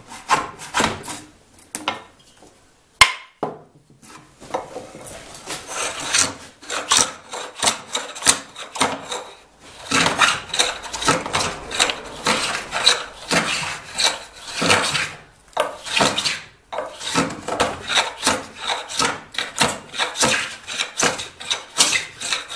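Small Japanese hand plane (kanna) taking quick, repeated short strokes over hard walnut, each pass a rasping shaving cut. A sharp knock comes about three seconds in, during a brief pause in the strokes.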